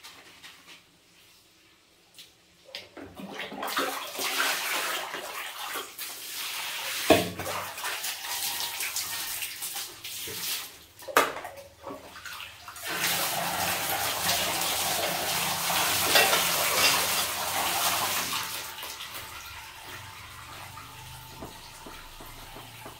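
Water scooped and poured with a plastic dipper from a large plastic basin: splashing and sloshing starting about three seconds in, with two sharp knocks, then a louder steady pour for about five seconds that dies down near the end.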